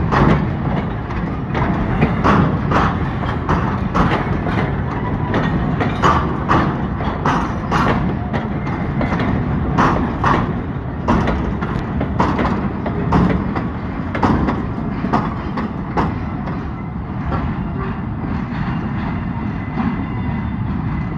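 Container freight wagons rolling past on jointed track: a steady low rumble with wheels clacking over rail joints and points. The clacks come thick at first and thin out over the last few seconds as the brake van at the tail of the train goes by.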